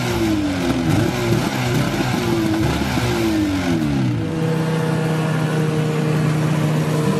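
Snowmobile engine revving, its pitch falling again and again for the first few seconds. About four seconds in it changes to a steady drone at an even pitch while the snowmobile rides across the snow.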